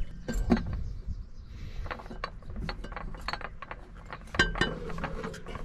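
Irregular metal clicks and clinks as a steel filter canister is handled and seated and its top fitting is turned down by hand, with a short metallic ring from one knock about two thirds of the way through.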